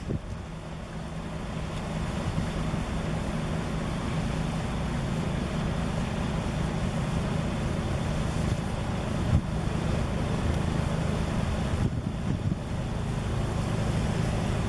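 Steady low engine-like rumble with a constant hum, like traffic or a running motor vehicle, with a brief low knock about nine seconds in.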